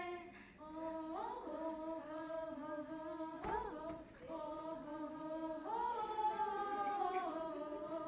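A woman singing a slow Hindi song unaccompanied into a microphone, holding long notes and sliding between them, with no instruments behind her.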